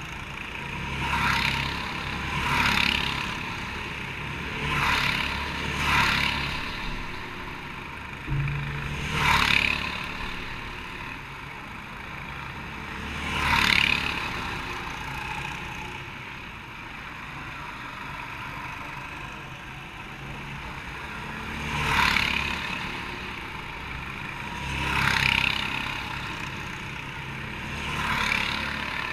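Go-karts passing one after another, each a brief rising and falling engine note. There are about nine passes in half a minute, over a steady low engine rumble.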